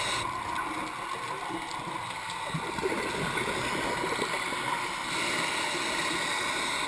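Underwater sound picked up by a GoPro in its waterproof housing: a steady muffled hiss, with irregular bubbling in the middle stretch.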